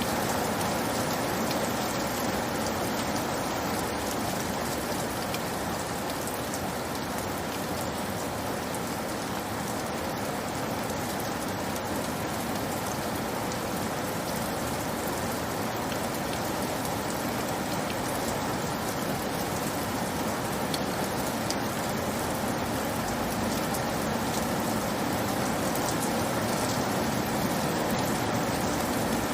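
Steady rain falling: an even, continuous hiss of rainfall with faint scattered drop ticks.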